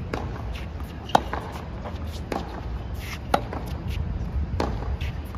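Tennis balls struck by racquets in a baseline rally: sharp pops about once a second, the strokes of the nearer player clearly louder than the far player's. A steady low rumble runs underneath.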